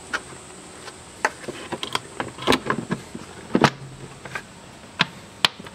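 Plastic air-filter box of a 2010 Jeep Wrangler being lowered over a new filter and pressed into place: a series of sharp plastic clicks and knocks, about six spread over several seconds.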